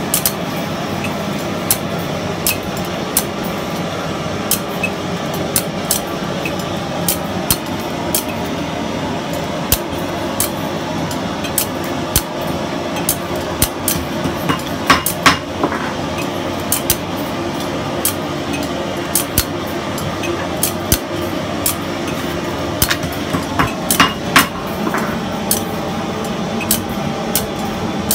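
Hand tools working thin metal bangle rods: irregular sharp metallic taps and clinks, with short bursts of ringing strikes about halfway through and again near the end, over a steady background hum.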